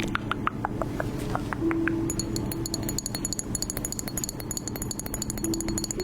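Rapid light clinking, many small sharp clicks a second, turning brighter and more ringing from about two seconds in, over a low steady hum.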